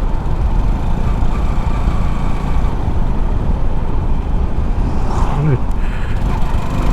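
Steady low rumble of wind buffeting the microphone together with road noise while riding a JT50 moped.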